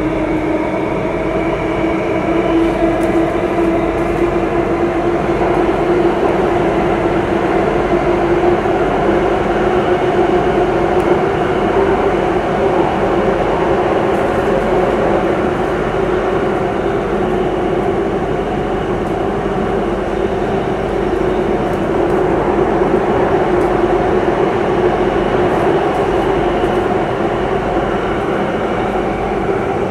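Singapore MRT Circle Line train running through an underground tunnel, heard from inside the carriage: a steady running noise of wheels and motors with a constant hum under it.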